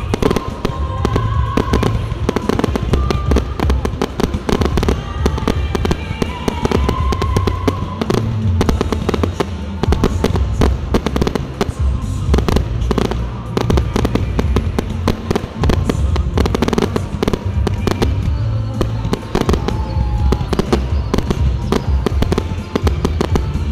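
Fireworks display in full swing: a dense, continuous volley of bangs and crackling shells, with music playing underneath.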